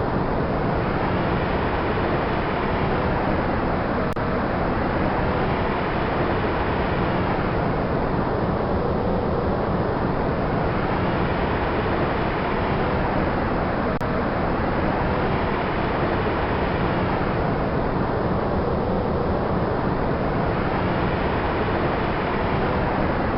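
Wind sound effect: a steady rushing noise that brightens and dulls in slow swells about every five seconds, like gusts rising and falling.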